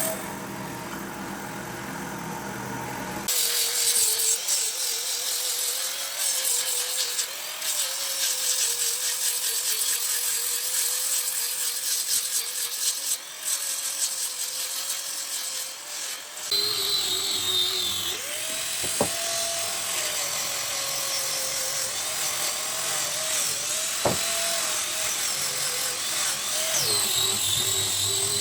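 An electric power tool running on wood, its motor tone wavering as the load changes. The sound changes character about halfway through.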